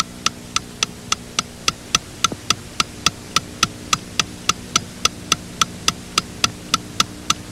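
Wristwatch ticking steadily, a little under four ticks a second, over a low steady hum.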